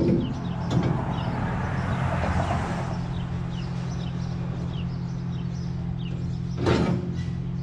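Diesel engine idling steadily while steel clamp-on pallet forks are worked onto a skid steer's loader bucket, with a sharp metal clank at the start and another about seven seconds in, and a scraping rustle in the first few seconds. Small birds chirp repeatedly in the background.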